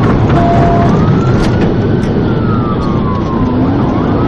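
Police car siren in a slow wail, rising and falling in pitch about once every two seconds, over the heavy rumble of the patrol car's engine and tyres at high speed.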